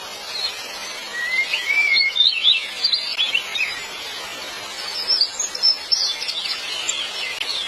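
Small birds chirping in two spells of quick rising and falling chirps, over a steady hiss.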